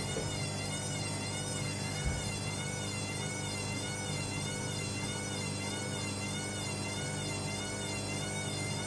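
Hoover Link washing machine's motor whining as the drum turns with a badly unbalanced load, its pitch wobbling regularly up and down with each turn, over a steady low hum. One brief thump about two seconds in.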